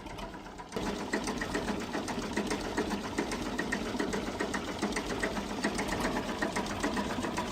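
A machine running with a fast, even mechanical clatter, starting abruptly about a second in.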